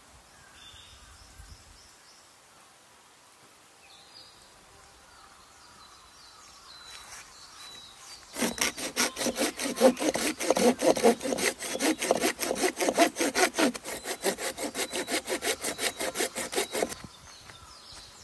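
Hand saw cutting through a tree branch in quick, even back-and-forth strokes. It starts about eight seconds in and stops about a second before the end, after faint outdoor quiet.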